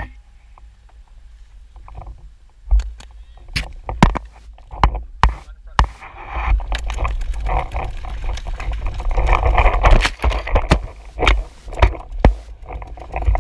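Sharp cracks of paintball markers firing and paintballs striking the bunker, single and in quick pairs, from a few seconds in. They come over a steady low rumble and a rushing noise that grows louder from about halfway through.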